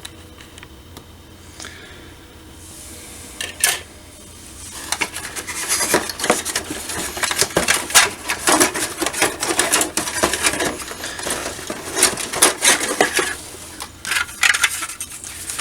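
Plastic model-kit parts being handled: a run of light clattering and crinkling, busiest from about five seconds in and thinning out near the end.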